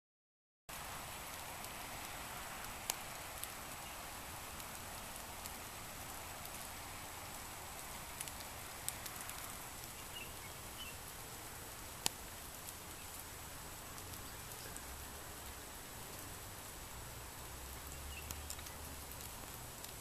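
Heavy rain falling as a steady hiss that starts abruptly just under a second in, with a few sharp ticks of single drops landing close by.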